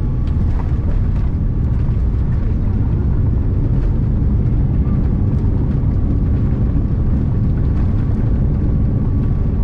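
Cabin noise of a Boeing 787-9 touching down and rolling out along the runway with its spoilers raised: a loud, steady low rumble of wheels and airflow.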